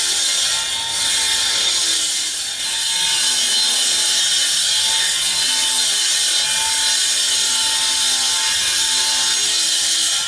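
Power saw cutting steadily, a continuous high-pitched hiss with no pauses.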